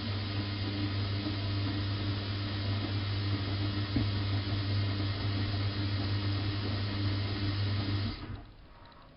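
Bosch WFK 2431 washing machine running with a steady, even hum. The hum cuts off about eight seconds in.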